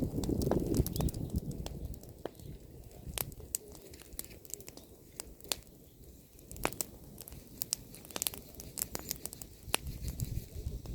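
Bonfire of pruned apple branches crackling, with irregular sharp pops and snaps from the burning wood. A low rumble sits under it, heavier in the first two seconds and again near the end.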